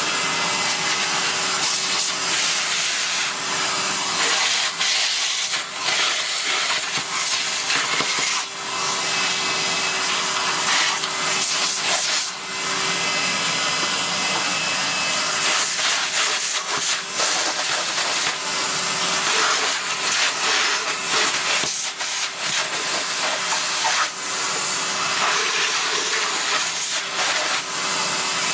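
Cylinder vacuum cleaner running with a steady suction hiss and a faint steady hum, with occasional knocks and brief changes in the rush of air as the nozzle works over and sucks dirt out of a bagless upright vacuum.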